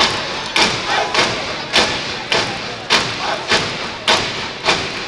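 Step team stomping and clapping in unison in a step routine, sharp beats at about two a second with lighter hits between, over crowd noise.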